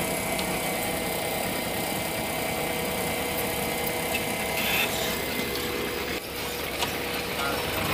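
Fuel transfer pump running with a steady hum while fuel is dispensed through its meter, with a short dip about six seconds in.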